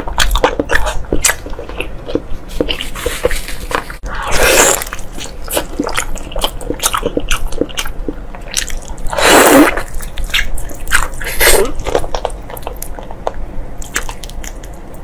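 Close-miked eating: biting and chewing braised pork knuckle, a continuous run of wet smacking and clicking mouth sounds. Two louder rushing sounds come about four and a half and nine and a half seconds in.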